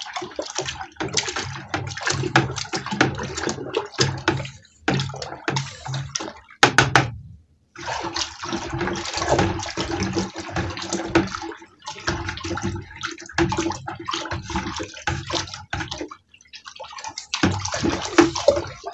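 All-grain mash in a fermenter being stirred vigorously: the liquid sloshing and churning, with a couple of short pauses and a few sharp knocks about seven seconds in. The stirring aerates the wash just after the yeast has been pitched, at the start of fermentation.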